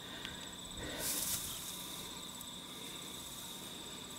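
Steady high-pitched insect chirring, with a short rustling hiss about a second in.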